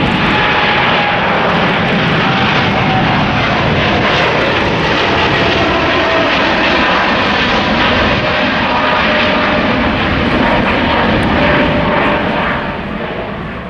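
Boeing 787's twin turbofan jet engines at take-off power as it climbs away: a steady loud roar with whining tones that slowly fall in pitch, fading near the end.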